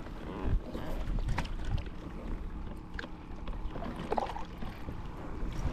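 A hooked fish splashing and thrashing at the water's surface beside a kayak, with a few sharp clicks and knocks and wind rumbling on the microphone.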